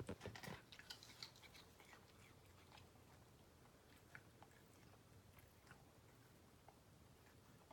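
A cat chewing raw chicken: faint, irregular small clicks of bites and chews.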